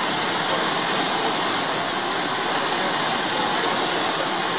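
Steady roar of fire apparatus pumping water: the engines and pumps of the fire trucks running continuously to feed the aerial ladder's water stream.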